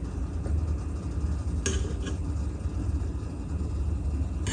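A steady low hum, with a short metallic scrape or clink of a steel tablespoon against a metal bowl or container about a second and a half in.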